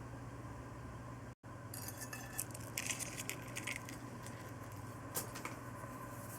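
Hardboiled egg being peeled by hand: the shell cracks and crackles in a quick run of small clicks in the second second or so, then once more near the end, over a steady low hum.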